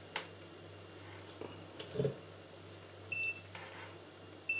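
Digital multimeter in continuity mode beeping as its probe tips close a circuit: a short high beep about three seconds in and a second, longer one starting near the end. A few soft clicks come from the probes being handled.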